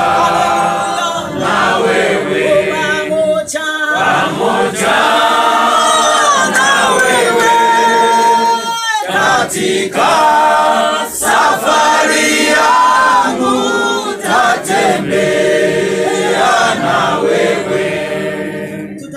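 A group of men and women singing a Swahili hymn together without accompaniment, the phrases broken by short pauses about 4, 9 and 11 seconds in.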